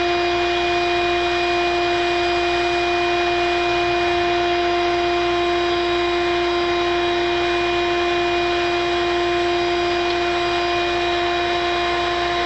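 A machine running steadily with a constant high whine over a rushing noise, at an even level throughout.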